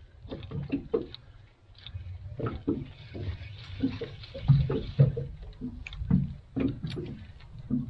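Water slapping against the hull of a drifting boat in irregular splashes, over a steady low rumble of wind on the microphone.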